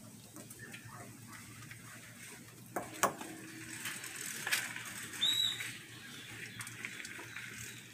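Light clicks and knocks of cookware being handled, the sharpest about three seconds in. A short high chirp sounds a little after five seconds.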